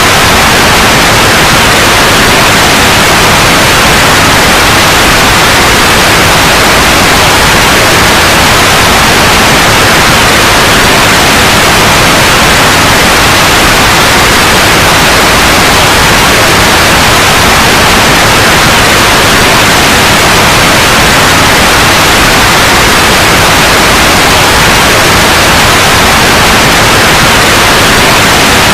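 Loud, steady synthetic white noise: an even hiss that does not change.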